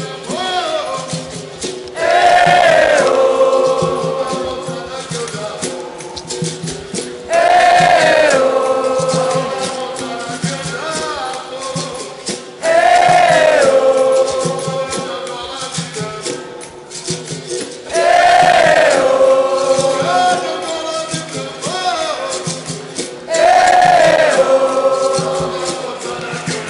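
Capoeira roda music: a large group sings the chorus in call and response, coming in loudly about every five seconds and fading between entries, over a berimbau and a shaker rattle.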